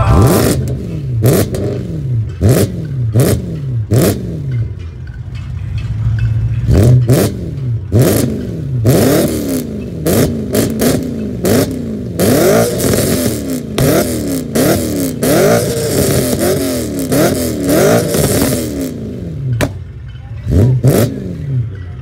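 BMW E92 M3 V8 revved repeatedly from idle in quick blips through its quad exhaust, the pitch sweeping up and falling back each time, several blips a few seconds apart and faster ones in the middle. Sharp pops and crackles sound from the exhaust as the revs drop.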